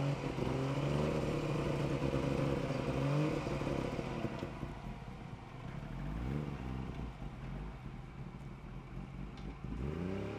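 Small Suzuki 4x4's engine revving under load as it climbs out of a deep hole. It is held high for the first few seconds, then drops off, gives a short rise about six seconds in, and climbs again near the end.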